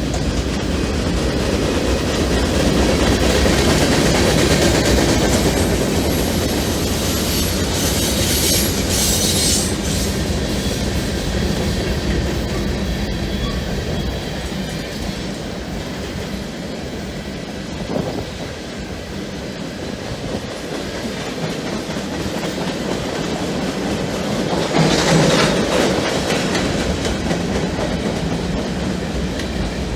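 Freight train cars rolling past, wheels clattering over the rail joints with a steady rumble. There are brief high-pitched bursts of wheel noise about a third of the way in and again near the end, typical of flanges squealing on a curve, and one sharp clank a little past halfway.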